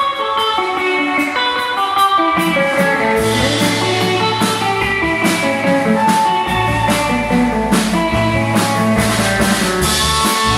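Live rock band playing at a sound check: a guitar picks a melodic line, then drums and low bass notes come in about two to three seconds in and the band plays on together.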